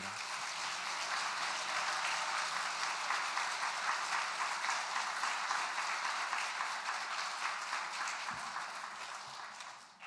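Congregation applauding steadily, dying away over the last second or two.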